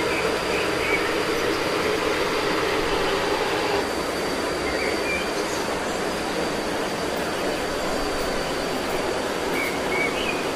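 Steady rushing outdoor noise with a thin high steady tone over it, and a few short, faint high chirps near the start, in the middle and near the end.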